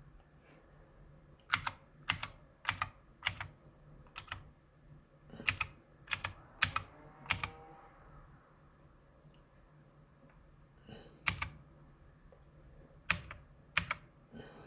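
Keys on a Mars Gaming MKMini 60% mechanical keyboard being pressed one at a time, about a dozen sharp clicks with short gaps. A run of them comes in the first half, and a few more follow after a pause of several seconds.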